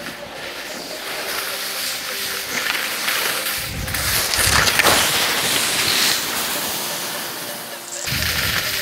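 Wind rushing over the microphone and skis scraping across snow on a downhill run, getting louder toward the middle with heavy gusts of wind about four seconds in.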